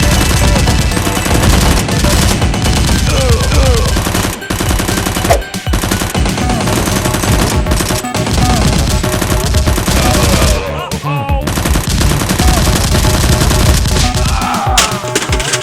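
Rapid, sustained automatic gunfire sound effects, dense volleys with brief lulls, over background music.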